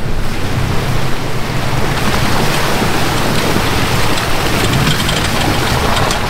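Wind buffeting a microphone that has no windscreen, a loud rumbling rush, with a vehicle engine running underneath.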